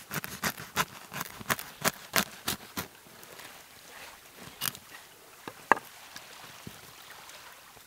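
A knife sawing through the hard crust of a round loaf of bread, crunching with each stroke about three times a second, then a few separate cracks as the loaf is handled.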